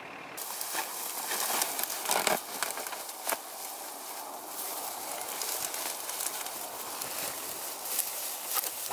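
Dry grass brush of a hunting blind rustling and crackling steadily, with many small clicks, as hunters shift inside it.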